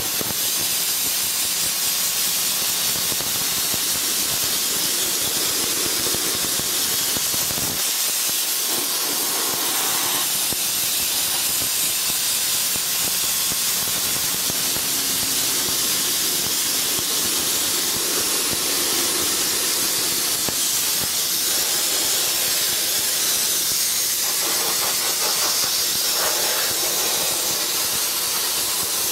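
Soda blaster (TESI 40 Eco Line) running: a steady, loud hiss of compressed air and soda abrasive from the hand-held nozzle, blasting the surface of weathered wood.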